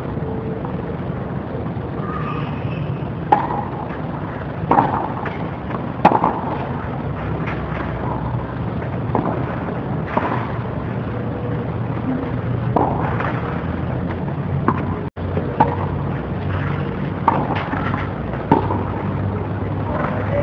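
Tennis rackets striking the ball during a doubles rally: a run of sharp, irregular pops, one every second or so, over a steady background hum.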